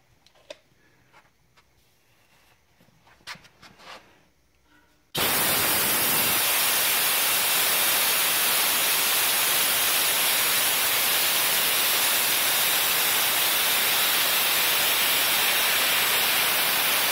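Compressed air blasting from a wide-open brass ball valve at the bottom of an air compressor tank. A loud, steady hiss starts suddenly about five seconds in, after a few faint clicks of handling. The fast-expanding air chills the valve enough to freeze moisture into ice and snow at the outlet.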